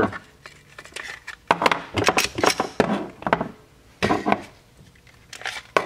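Glock pistols being cleared by hand: a run of irregular plastic-and-metal clacks and clicks as magazines are pulled out and set down on the table and slides are drawn back to check the chambers.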